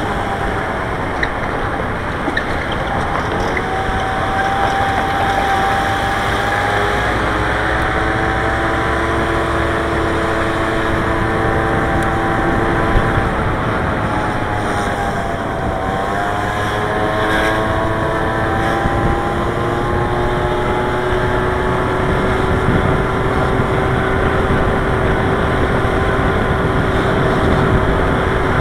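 Engine of the vehicle carrying the camera, running while driving in traffic. Its pitch falls about halfway through, then climbs again, over a steady rumble of road and wind.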